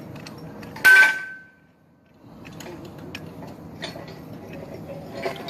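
A single loud metallic clang about a second in, ringing briefly as it fades, followed by scattered light clinks and knocks.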